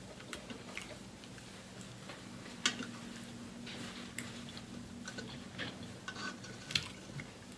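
Quiet eating sounds: scattered small wet clicks and ticks of chewing and handling food, a few sharper ticks among them, over a faint steady room hum.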